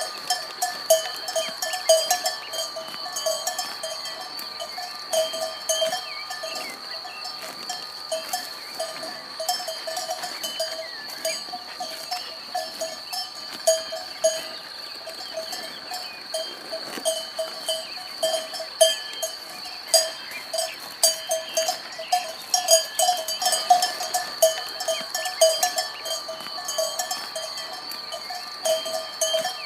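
Cowbells on grazing cattle clanking irregularly, several strikes a second, over a steady high-pitched whine.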